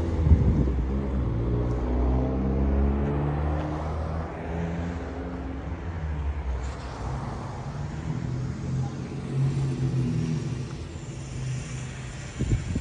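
Street traffic: a car engine running and pulling away, with a low drone whose pitch drifts up and down, loudest in the first half and fading over the last few seconds. A few low thumps come near the end.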